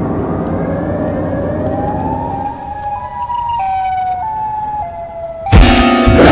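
A low rumbling drone fades over the first two seconds or so while a siren tone rises, then jumps between held pitches about every half second: Siren Head's siren. About five and a half seconds in, a sudden very loud blast with a deep thump cuts in.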